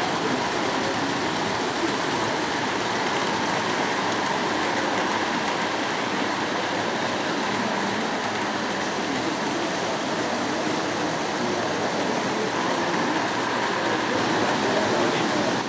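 O gauge model trains running on metal track: a steady running noise of wheels on rails, a little louder near the end as a train passes close by.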